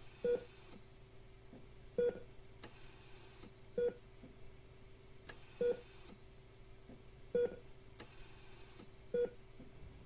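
Hospital patient monitor beeping: six short, even beeps, about one every 1.8 seconds. Between them there is a faint hiss and a steady low hum.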